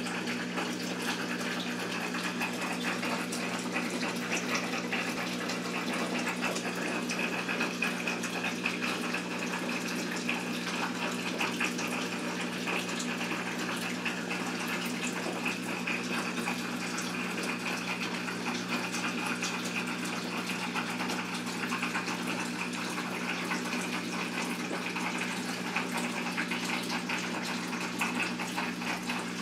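Steady hiss of running water over a low, even hum.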